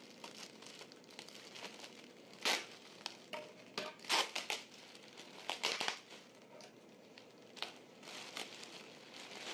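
Plastic bubble wrap crinkling and rustling in short irregular bursts as it is cut with scissors and pulled open by hand.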